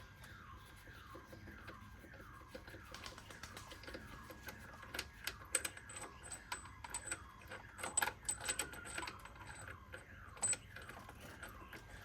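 Light metallic clicks and clinks of a 21 mm socket and the freshly removed crank pulley bolt being handled, loosest in the first few seconds and busiest in the middle. A faint chirp falls in pitch about twice a second behind them.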